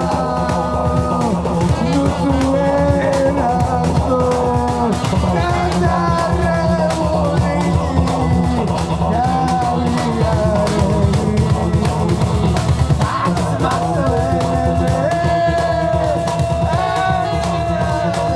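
A Georgian band playing live: a melody line that bends in pitch over steady bass and a dense drum beat.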